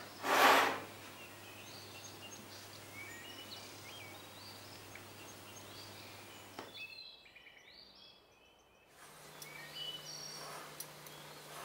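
Small birds chirping in the background over a steady low hum, with one loud brief rush of noise about half a second in. The background drops out for a moment about seven seconds in, then resumes with a slightly higher hum.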